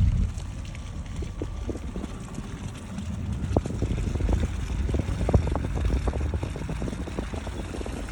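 A vehicle's low rumble, with scattered crackles and clicks throughout.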